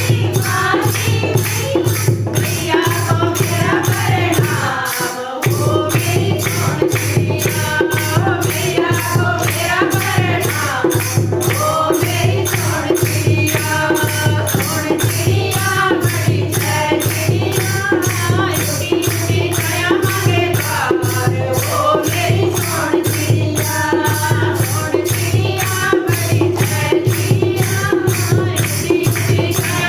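Hindi devotional kirtan bhajan: voices singing a melody over a steady beat of jingling hand percussion, with a short drop in the music about five seconds in.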